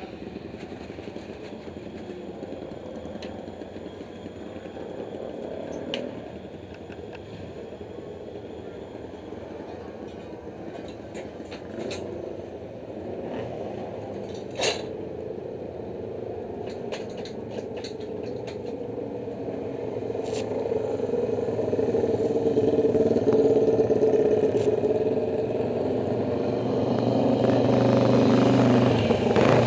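Motorcycle engine running at low, fairly steady revs, getting louder and stronger over the last third. A few sharp knocks or clicks sound over it, the loudest about halfway through.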